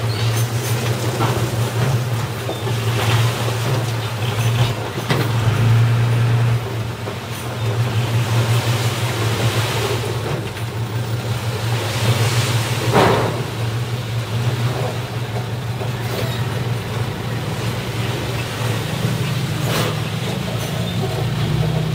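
Dump truck's diesel engine running steadily while its bed is tipped up to unload soil, with a brief louder rush of noise about halfway through.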